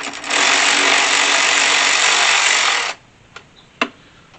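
Cordless electric ratchet (a WorkPro) backing out a 5/16-inch (8 mm) heater-box screw. The motor winds up quickly, runs steadily for about two and a half seconds, then stops suddenly. A couple of short clicks follow.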